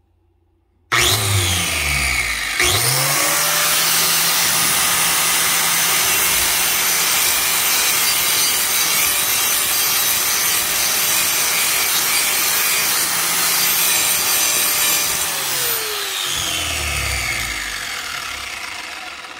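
Black & Decker 6-amp 4½-inch angle grinder starting up about a second in with a rising whine, then grinding the edge of a dull steel mower blade with a metal grinding disc: a loud, steady grinding. Near the end the motor winds down with a falling whine.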